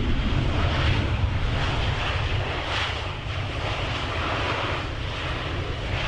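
Jet airliner's engines running as the plane rolls along the runway, a steady, even engine noise with no speech over it.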